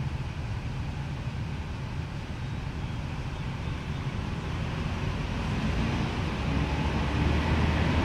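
Steady low rumble with an even hiss of background noise, growing gradually louder near the end.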